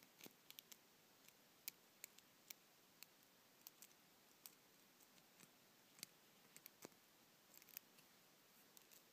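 Faint, irregular small clicks and ticks over near silence: a cutaway padlock being handled and worked with picks.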